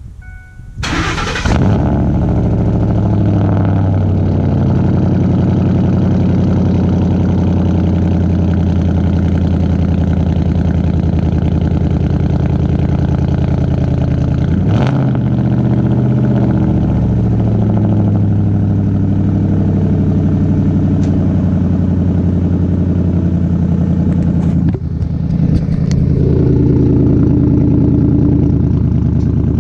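Cold start of a 2004 Ford F-150's 5.4-litre Triton V8 through straight-piped 2.5-inch true dual exhaust with the rear catalytic converters deleted: it cranks and catches about a second in, then settles into a loud, steady fast idle. It runs a little louder in the last few seconds.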